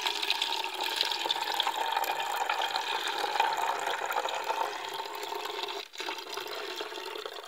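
Thin stream of cooled kahwa poured from a pot into a green plastic bottle, running steadily into the bottle as it fills, with a brief break just before the end.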